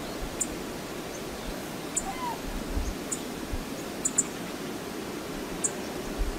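Steady rushing outdoor background noise from a wildlife camera microphone. Short high-pitched ticks sound about once a second, with a few low rumbles and a faint brief chirp about two seconds in.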